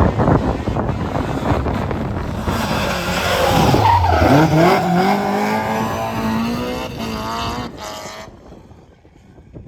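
BMW M3 E30 rally car with its S14 four-cylinder engine driving hard: the engine note drops sharply about four seconds in, then climbs again as it accelerates away. The sound fades out shortly before the end, with a broad rush of tyre and road noise underneath.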